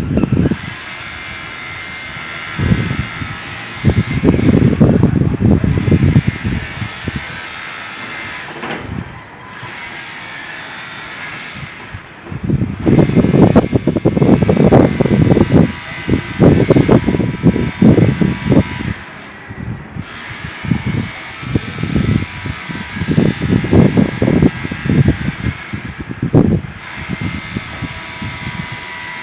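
Electric demolition hammer (martelete) chiselling concrete in repeated runs of rapid hammering, each lasting from under a second to a few seconds, with a steady mechanical hum between the runs.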